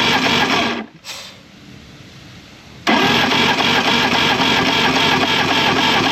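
Electric starter cranking a 1988 Evinrude 200 hp two-stroke V6 outboard without it firing, the ignition off for a compression test. A burst stops about a second in, and a longer run starts about three seconds in.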